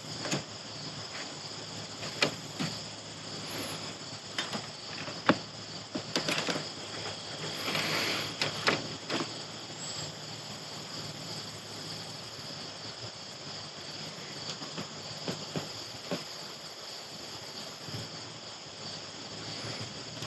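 Scattered clicks and handling noises over a steady high hiss, as heat-shrink crimp connectors are sealed with a butane lighter. The loudest clicks come about two and five seconds in, and a longer noisy rustle follows around eight seconds.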